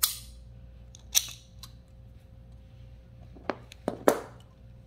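Sharp metal clicks from cheap imitation Knipex Cobra slip-joint pliers as their stiff adjustment mechanism is worked by hand: a loud click at the start and another about a second in. Near the end comes a quick cluster of clicks and knocks as the pliers are laid on the table.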